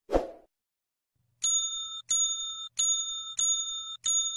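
Editing sound effects: a short soft thump right at the start, then five identical bright electronic chimes, one every two-thirds of a second or so.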